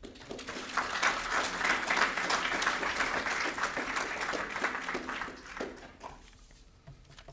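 Audience applauding: the clapping swells within the first second, holds, then dies away about six seconds in.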